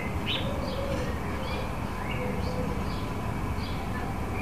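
Small garden birds chirping faintly in the background, short scattered notes every half second or so, over a steady low rumble; two soft, low drawn-out notes come in about half a second in and again a little past two seconds.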